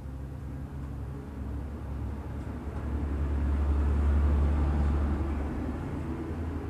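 A passing vehicle's low rumble, building to its loudest about four seconds in and then easing off.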